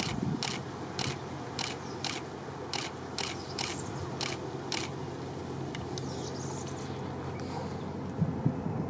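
A distant Boeing 747 taking off, its jet engines a steady low rumble. Over it, a run of sharp clicks, about two a second, stops about five seconds in.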